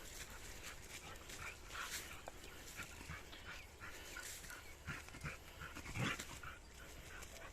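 A three-month-old Kombai puppy making short, irregular sounds, with one louder sound about six seconds in.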